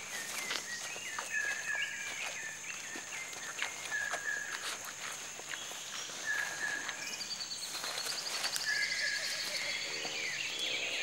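Rainforest ambience: a steady high insect drone, a bird repeating a short flat whistle every second or two, and a fast high trill a little past the middle. Scattered faint clicks and a short lower call near the end.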